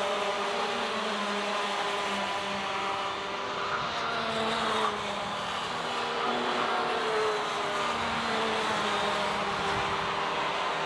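Several racing go-kart two-stroke engines running hard together at high revs, their overlapping pitches rising and falling as the karts brake and accelerate through corners.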